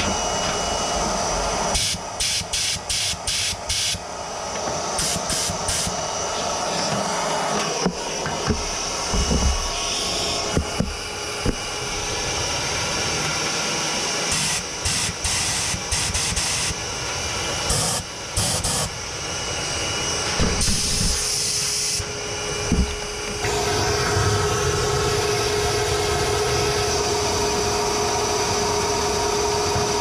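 A vacuum cleaner runs steadily while a compressed-air blow gun hisses in repeated bursts, switched on and off rapidly at times. It is blowing dust out of a gas water heater's clogged intake filter screen.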